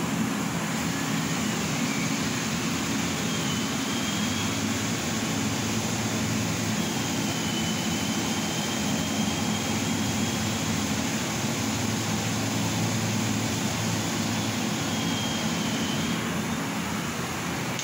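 A CO2 laser cutting machine running a cutting job: a steady hum and hiss of machinery, with faint high whines that slide up and down in pitch now and then.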